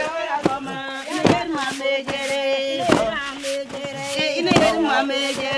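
A group of voices singing a chant-like song, with heavy wooden pestles striking grain on bare rock in uneven thuds about every one to two seconds.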